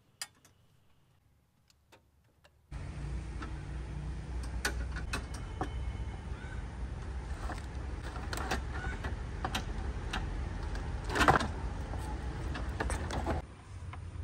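Clicks and knocks of a car's plastic radiator fan shroud and radiator being handled and pushed into their mounts, over a steady low rumble that starts suddenly about three seconds in. One louder knock comes near the end.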